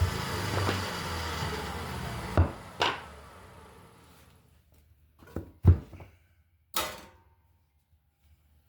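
Thickness planer running, then switched off and winding down over a couple of seconds. Several sharp wooden knocks and clunks follow, one of them much louder than the rest.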